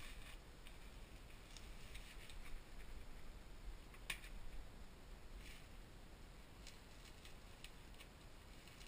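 Faint rustling and clicking of bubble wrap being handled, with a sharp click about four seconds in. Near the end come small scattered ticks as scissors cut through the bubble wrap.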